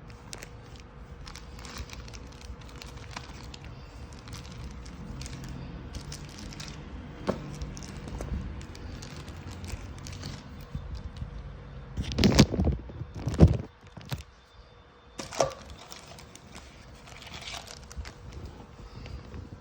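Packaging being handled during an unboxing: crinkling and rustling with many small clicks. A few louder knocks come about twelve to thirteen and a half seconds in, and another about fifteen seconds in.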